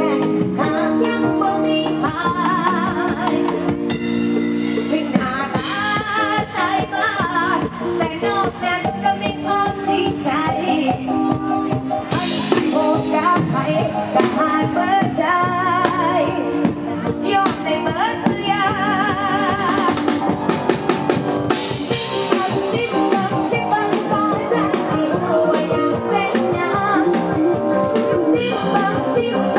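Live Isan-style band music: a drum kit keeping a steady beat under a melodic lead that wavers in pitch.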